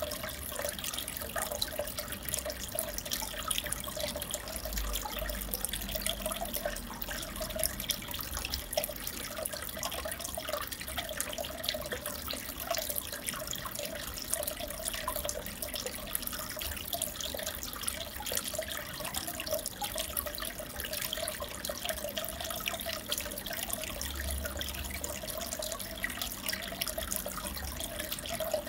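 Aquarium water trickling and bubbling steadily, with many small drips and pops.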